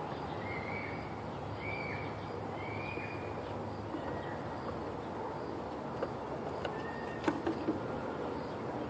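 A bird calls four times in the first three seconds, short arching calls, over a steady outdoor background hum. A fainter call and a few light taps come near the end.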